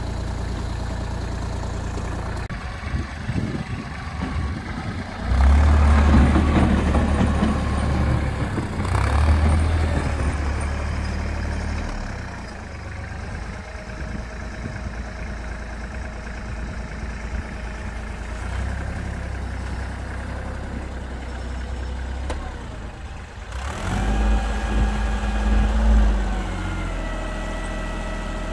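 Kubota GL-301 tractor's diesel engine running while its front loader works snow. It runs louder under load about five seconds in and again near the end, where it revs up and back down.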